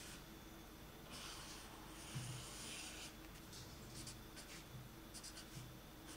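Black felt-tip pen scratching faintly across paper as lines are drawn: a longer stroke of about two seconds, then a run of short, quick strokes. A soft low bump comes about two seconds in.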